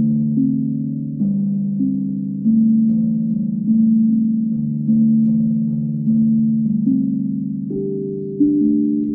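Moyo drum played slowly: single low pitched notes struck about once a second, each ringing out and fading while the earlier ones still sound, so they blend into a sustained chord.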